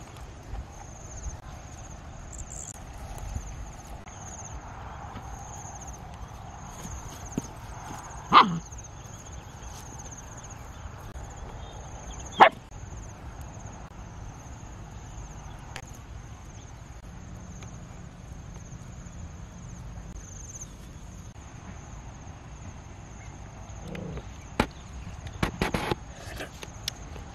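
Two short, loud barks about four seconds apart, over a steady high insect drone. Near the end come a few clicks and crackles as langsat fruit is broken open and bitten at the mouth.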